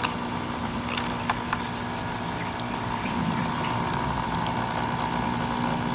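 Nescafé Dolce Gusto capsule coffee machine brewing: a sharp click at the start, then the pump runs with a steady hum. From about three seconds in the sound thickens slightly as coffee starts pouring into a glass cup.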